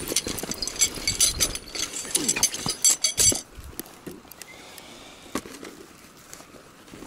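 Fishing gear being handled: rustling of a fabric rod bag and light metallic clinks from the rig's rings, swivel and sinker. It is busy for the first three seconds or so, then settles to a few scattered clicks.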